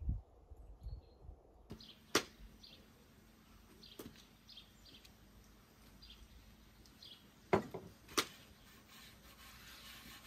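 Small birds chirping over and over, with four sharp knocks on the worktable, two of them close together near the end. In the last second there is a soft rustling hiss as floured hands spread flour over a wooden board.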